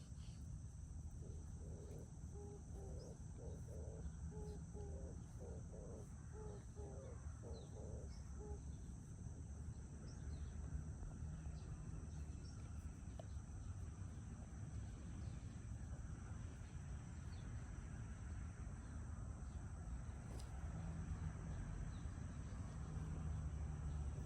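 Quiet outdoor ambience: a steady high insect shrill over a low rumble. In the first third a series of short repeated calls comes about once a second.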